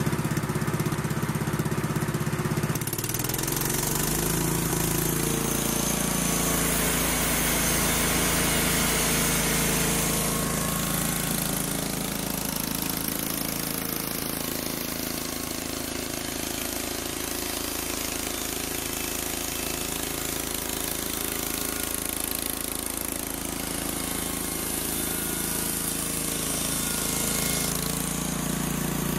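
Small gasoline engine of a homemade bandsaw mill running; about three seconds in its pitch rises and holds higher as the electric throttle control speeds it up. A high hiss runs alongside for several seconds after the change.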